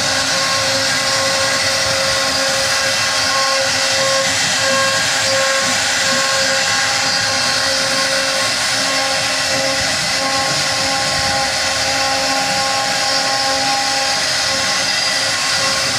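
CNC router carving wood: a steady spindle whine over a continuous hiss of cutting, with the pitch wavering in and out as the cut goes on.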